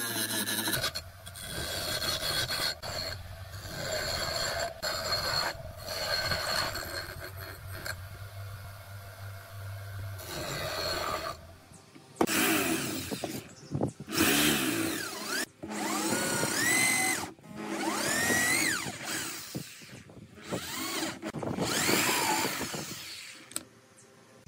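A bench grinder runs with a steady hum while a wooden strip is pressed against its wheel, giving a rasping rub. About halfway through, an electric drill takes over, boring into a block of wood in several trigger pulls, its motor whining up in pitch and falling back each time.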